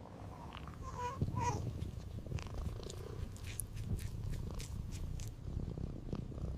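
Domestic cat purring steadily, a close low rumble, with two brief chirps about a second in and a few light clicks.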